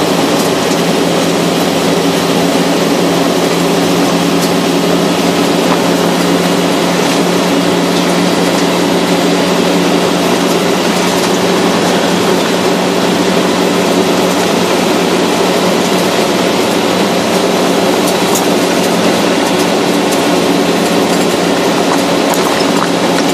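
Car driving along a gravel road: a steady hum of engine and tyre noise on loose gravel, with a few faint ticks near the end.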